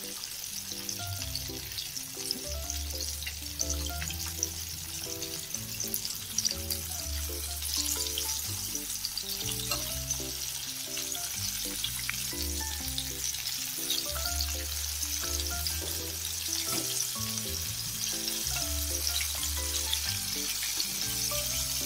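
Flour-and-egg-coated chicken pieces deep-frying in hot oil: a steady sizzle with fine crackling. Background music runs alongside, with a repeating melody and a bass line.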